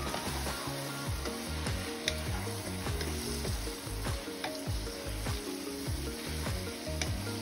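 Sliced onions and bell peppers sizzling in a frying pan as they are stirred with a wooden spatula. The spatula scrapes and taps against the pan a few times.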